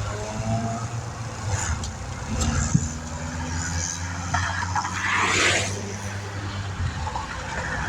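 Interstate traffic going by, with one vehicle swishing past about five seconds in, over a steady low hum that stops near the end.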